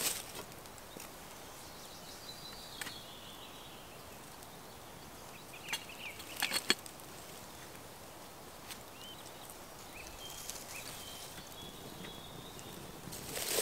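Quiet woodland background with faint, thin bird calls. It is broken by a few light clinks and knocks of a kettle and a metal twig stove being handled and fed with wood, the busiest cluster about six and a half seconds in.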